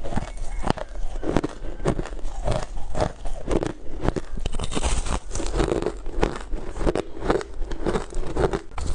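Ice being bitten and crunched close to the microphone: a quick run of sharp crunches with crackling between them.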